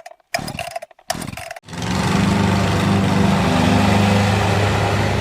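Lawn mower engine running steadily, after a few brief choppy bursts in the first second and a half.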